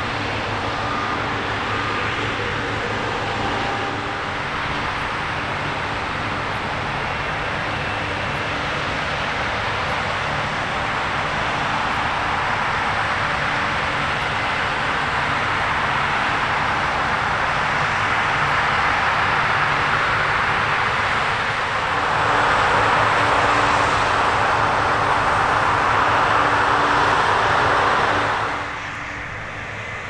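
New Holland CR10.90 combine harvester running under load while cutting and threshing grain: a steady engine drone with a dense machine rush on top, growing louder for a stretch, then dropping suddenly near the end.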